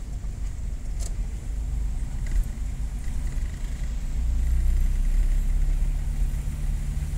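Steady low rumble of a motor vehicle running, growing louder about four seconds in, where a steady low hum sets in.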